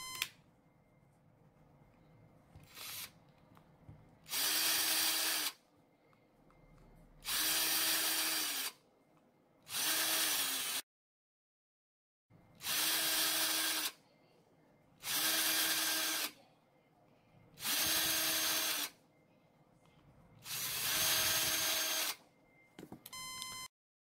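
Cordless Ryobi drill-driver with a small screwdriver bit, run in seven short bursts of about a second each as it turns out the tiny screws of a phone's midframe; each run the motor whirs up to speed and winds down as the trigger is released.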